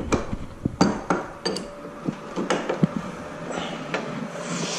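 Steel wrenches clinking and scraping on the brass flare-nut fittings of an air-conditioner's copper refrigerant lines as the joints are tightened: several sharp metal clicks over a scratchy rub of gloves on metal.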